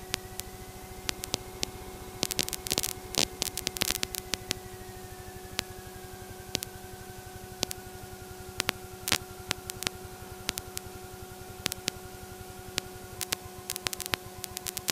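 Aircraft radio and intercom audio feed open between transmissions: a steady hiss and hum with scattered crackling clicks, and a faint tone that slowly falls in pitch.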